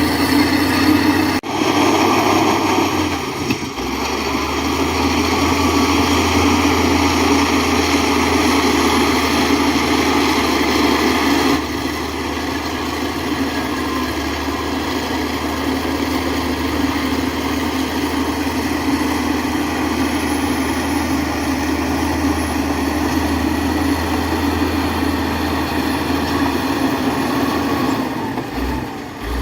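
Heavy diesel engine of earth-moving machinery running steadily with a low drone, briefly cutting out about a second and a half in and running a little quieter from about twelve seconds on.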